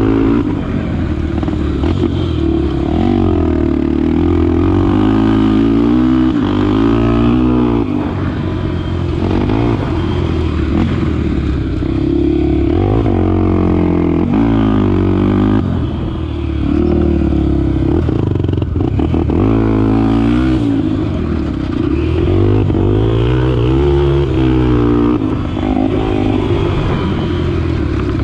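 Honda XR250 Tornado's single-cylinder four-stroke engine being ridden, the throttle opening and closing so that the engine note rises and falls every couple of seconds.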